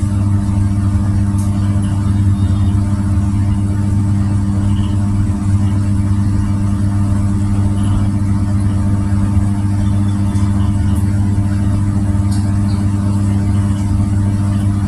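A steady low mechanical hum that keeps an even level, with a few faint ticks.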